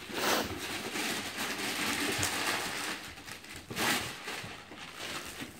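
Wrapping paper being torn and crumpled off a gift box: rustling and crackling in uneven bursts, loudest near the start and again about four seconds in.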